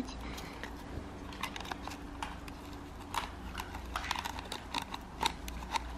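Irregular small clicks and rustles of fingers working tangled hair out of the wheels of a plastic remote-control toy car.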